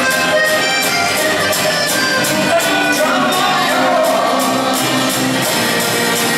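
Live acoustic rock band with a string section playing a song: strummed acoustic guitars, violins and cello over a steady drum beat.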